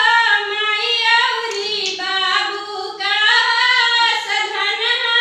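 A girl singing unaccompanied in a high, clear voice, holding long notes with ornamented waver, with a brief breath about three seconds in.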